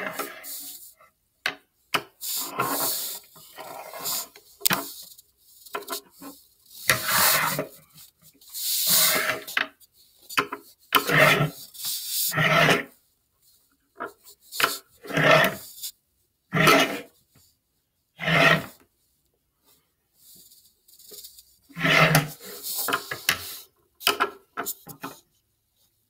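Repeated rasping, scraping bursts, each about a second long with short silent gaps between: scissors being rubbed and scraped against a wooden tabletop close to the microphone.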